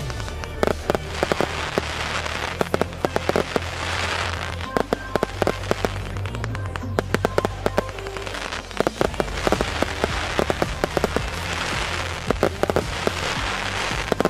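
A fireworks battery firing shot after shot, the sharp bangs coming in quick clusters, with swells of crackle from the glittering stars between them.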